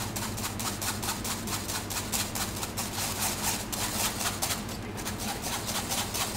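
Wire whisk scraping round inside a stainless steel chinois in rapid, even strokes, forcing pancake batter through the fine mesh to strain out lumps.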